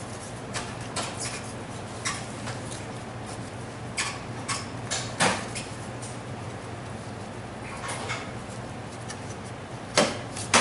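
Scattered metallic clicks and knocks as a scooter's brake caliper is taken apart by hand, with metal parts and bolts clinking against each other. The knocks cluster about four to five seconds in, and the loudest comes near the end.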